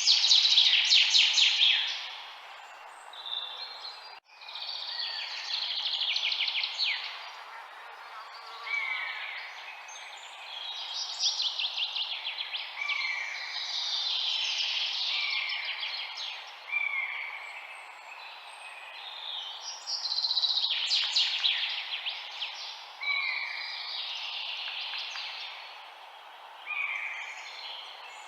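Several songbirds singing and calling over a steady background hiss: rapid buzzy trills and short falling whistled notes that overlap and repeat every second or two. The sound drops out briefly about four seconds in.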